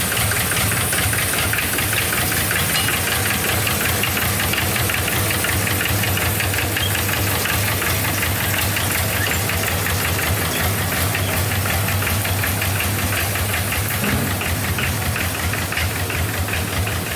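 Tractor engine running steadily with a rapid, even knocking beat as it tows a reaper-binder.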